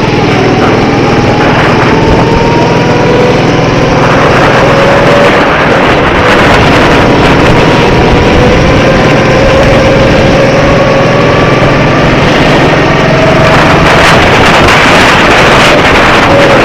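Go-kart engines running on track, their pitch rising and falling with speed through corners and straights, over a loud, steady rush of noise.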